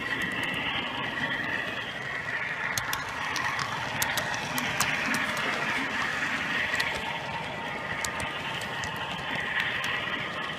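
Model train running along the layout's track, heard from on board: a steady motor-and-gear whine with scattered sharp clicks from the wheels on the rails.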